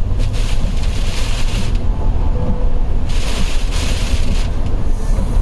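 Road noise inside a car driving at highway speed in a storm: a steady heavy rumble, with a rushing hiss that swells and fades a few times, like tyres and spray on a wet road.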